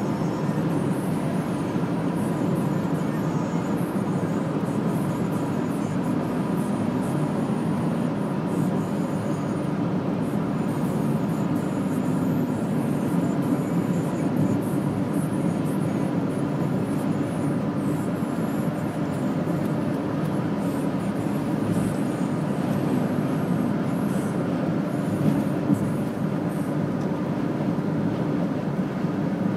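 Steady drone of engine and tyre noise inside a moving car's cabin on a wet road.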